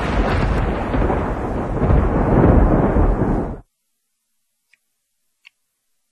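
Title-sting sound effect: a deep, dense rumbling boom like fiery thunder, loudest in the low end, which cuts off abruptly about three and a half seconds in. Near silence follows, with two faint short clicks.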